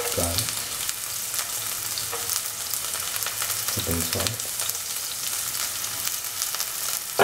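Sliced onions and garlic frying in hot oil in a pan, with a steady sizzle and crackle.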